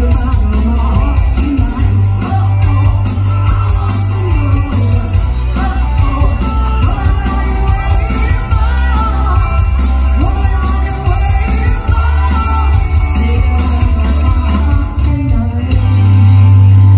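Live rock band playing, a woman singing lead over drums and bass guitar. Near the end the sound swells into a loud, held low note.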